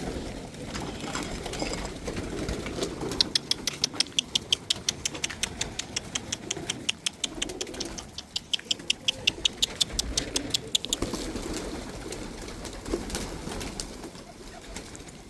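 Domestic pigeons cooing, with a fast, even run of sharp clicks from about three seconds in to about eleven seconds in.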